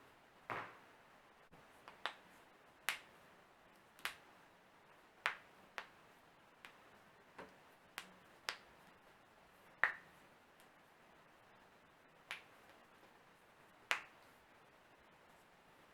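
A person cracking their own joints: a string of about a dozen sharp, crisp pops at uneven intervals, sometimes a half-second apart and sometimes two seconds, with the loudest coming about ten seconds in and again near the end.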